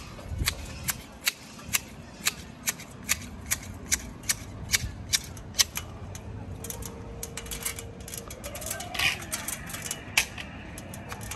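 Manual hedge shears snipping a conifer hedge: a steady run of sharp blade clicks, about two a second, which turns irregular after about six seconds.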